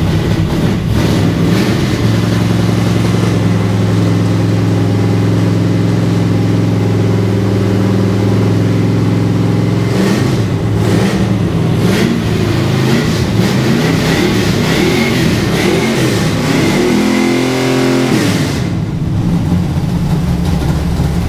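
Freshly started 8.0-litre carburetted V8 running unmuffled. It idles steadily, is blipped sharply a few times about halfway through, and revs up and back down once near the end before settling again.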